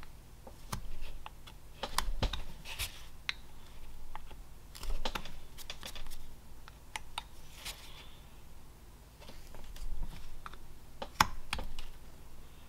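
Sergey Belov carving knife cutting basswood: an irregular run of sharp clicks and short scrapes as the blade makes step cuts and slices small chips free.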